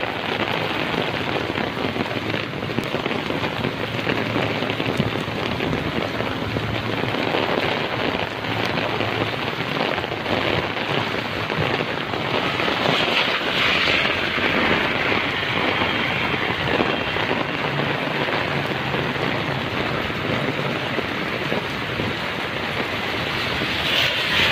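Heavy rain falling steadily on a wet paved street: a dense, even hiss that grows briefly stronger about halfway through.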